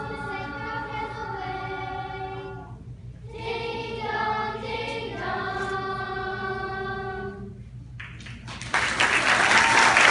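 Children's choir singing the long held notes of a song's ending, with a short breath gap about three seconds in. The singing stops near the end and audience applause breaks out, louder than the choir.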